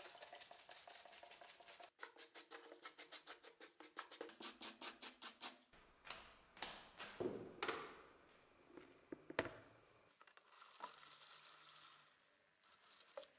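A hand spray bottle squirted rapidly again and again, about five squirts a second, then a few knocks of a plastic tub being handled and liquid solvent pouring and splashing over the horseshoe in the tub.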